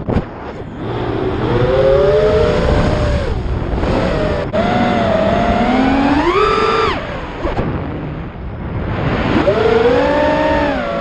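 FPV quadcopter's brushless motors and propellers whining, the pitch rising and falling in several surges as the throttle is worked, with a sharp click about halfway through.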